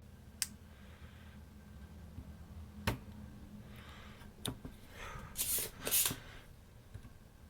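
Small sharp clicks and taps of a tool working on a circuit board, with two short scraping rustles about five and a half and six seconds in, over a low steady hum.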